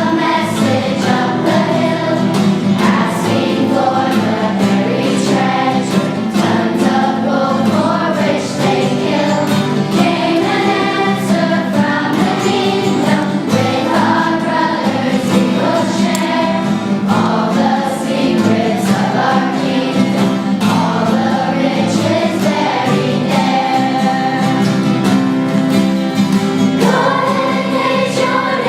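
Children's choir singing a song together, the voices carrying on without a break.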